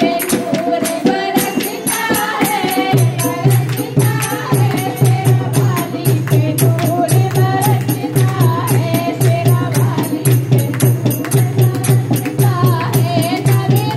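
Devotional singing or chanting over quick, steady percussion clicks. A strong low steady drone joins about three seconds in.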